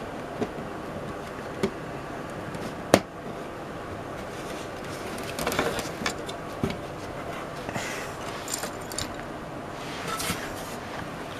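Plastic model-kit pieces being handled and fitted together: a sharp click about three seconds in, then scattered lighter clicks and rattles of plastic parts, over a steady low hiss.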